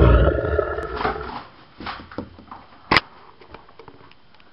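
Domestic cat meowing in a lion-like voice, calling to be let in: one long loud call at the start, then a few shorter, weaker calls. A sharp click about three seconds in.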